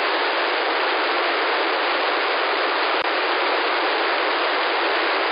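Narrowband FM hiss from a software-defined radio tuned to an empty UHF military satcom channel with the squelch open: a loud, steady band of static with no signal in it. A single brief click about three seconds in.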